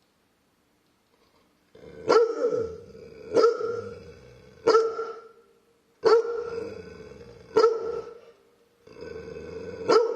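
An old dog barking, six loud single barks about a second and a half apart, starting about two seconds in.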